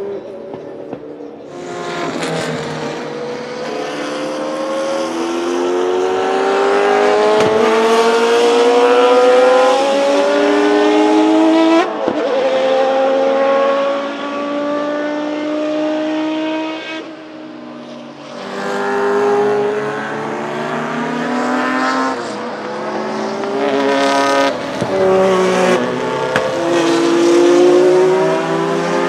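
Judd GV10 3.5-litre naturally aspirated V10 of a Lola T92/10 Group C car accelerating hard through the gears: its pitch climbs in long pulls and drops sharply at each upshift. After a brief lull it revs up and down again with quick throttle changes.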